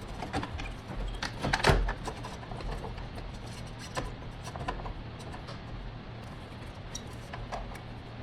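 Scattered clicks and knocks of hand tools and metal parts being handled, loudest in a short cluster about a second and a half in, over a steady low electrical hum.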